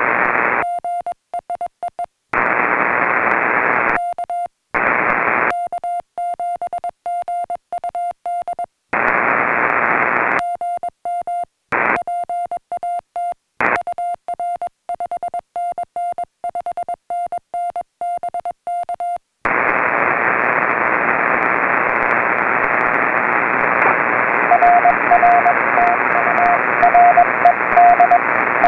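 Amateur HF transceiver in CW mode: receiver band hiss broken by several bursts of the operator's own Morse-code sidetone, a steady tone keyed in dots and dashes, with the hiss dropping out while he sends his CQ call and a 5NN signal report. From about 19 s only the band hiss is heard, and from about 24 s the answering station's fainter Morse comes through the noise.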